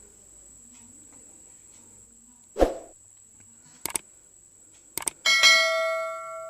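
Kitchen utensils being handled: a single knock, a few light clicks, then one ringing strike, the loudest sound, whose tone dies away over about a second and a half.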